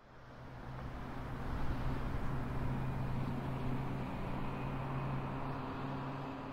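Steady room ambience with a low hum, fading in from silence over the first second or two.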